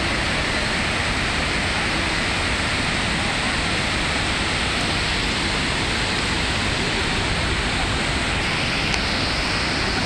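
Water rushing steadily over the wide rock ledges of a broad, low waterfall in heavy flow, an even, unbroken roar of falling and churning water.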